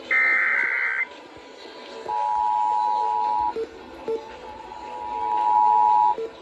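Emergency Alert System tones. First the last of the SAME header data bursts, a harsh warbling screech about a second long. Then, from about two seconds in, the steady two-tone attention signal (853 and 960 Hz), which breaks off briefly twice.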